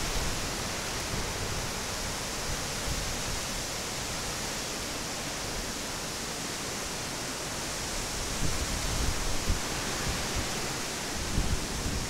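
Typhoon weather: a steady hiss of wind and rain. Low rumbles of wind buffet the microphone in the last few seconds.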